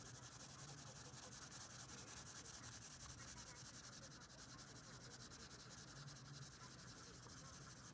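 Faint scratching of a blue colored pencil shading on paper, in quick back-and-forth strokes at an even rhythm of several strokes a second.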